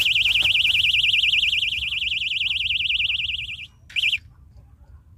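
Electronic bite alarm on a fishing rod sounding a loud, fast-warbling high tone that cuts off about three and a half seconds in, then chirps once more briefly. The alarm signals a fish taking the bait.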